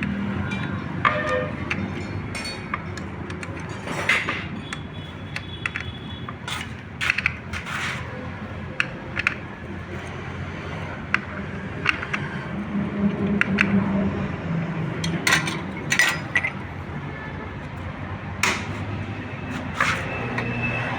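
Irregular sharp metallic clicks and clinks of hand tools on bolts of a motorcycle engine's aluminium clutch-side cover as the bolts are tightened in turn.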